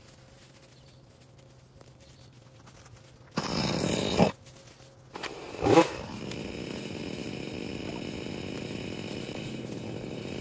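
A small petrol engine of a handheld yard tool: a short loud burst, then it starts about five seconds in, revs once and settles into a steady run.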